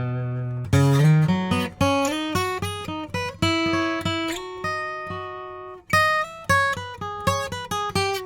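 Eastman E1D dreadnought acoustic guitar, spruce top with sapele back and sides, played solo: a ringing chord, then a melody of single plucked notes, with one note held for over a second in the middle.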